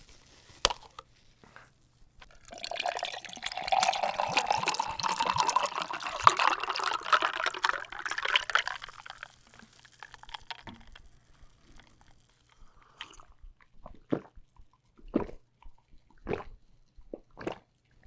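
Aloe drink being poured into a glass, with a rising pitch as the glass fills. Near the end come a few short clicks.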